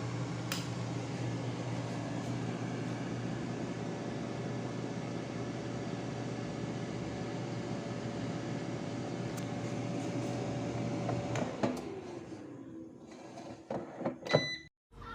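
Air fryer running with a steady fan hum, which shuts off about three-quarters of the way through, its pitch falling as the fan winds down. A few clicks and a short electronic beep follow near the end.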